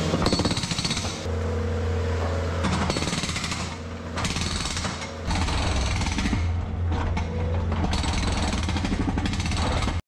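Breaker hammer pounding the old concrete driveway slab to break it out, in spells with short pauses, over a steady engine.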